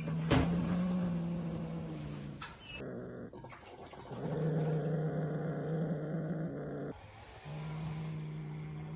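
A cat growling low in three long held growls with short breaks between them, typical of a cat guarding a mouse it has just caught. A sharp knock comes about a third of a second in.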